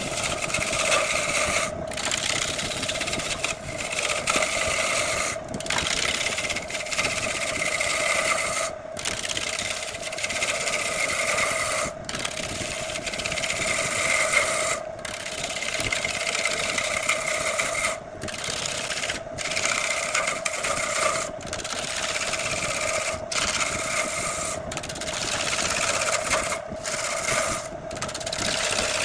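Wood lathe running with a steady motor hum while a turning tool cuts the spinning jackfruit wood, the hiss of the cut swelling and easing. The sound drops out for an instant every one to three seconds.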